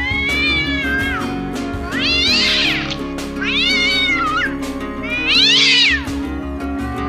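Domestic cat meowing four times, long drawn-out meows that each rise and then fall in pitch, the last one the loudest. Background music with a steady beat plays under them.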